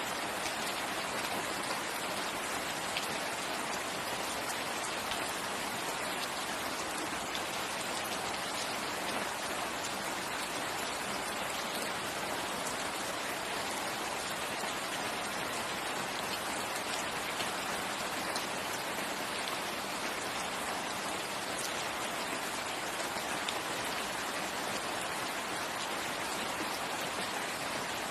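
Steady rain falling: an even, unchanging hiss with faint ticks of individual drops throughout.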